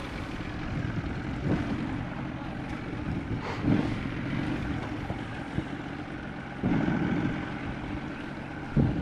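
Boat's outboard motor running steadily at low speed, with a few short thumps and knocks.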